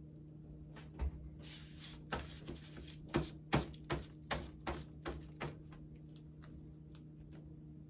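Light clicks and taps of a plastic cup and small mold being handled while wet concrete is poured into the mold. There are about a dozen in quick succession, stopping about five and a half seconds in, over a steady low hum.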